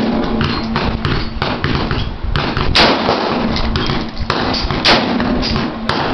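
Two AR-15 rifle shots about two seconds apart, each a sharp crack with a short echo, over a steady low hum and fainter clicks and knocks.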